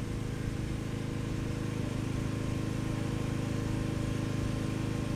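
A 4x4's engine running steadily, driving the alternator that powers an arc welder.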